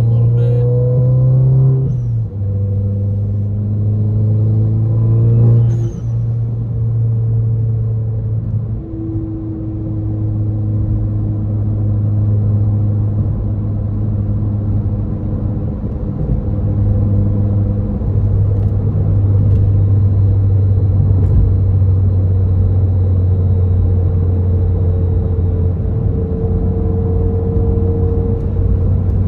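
Engine and road noise inside the cabin of a 2015 Volkswagen GTI, its 2.0-litre turbocharged four-cylinder pulling up through the gears. The engine's pitch climbs and drops back at gear changes about two and six seconds in, then holds a steady drone at cruising speed over tyre and road rumble.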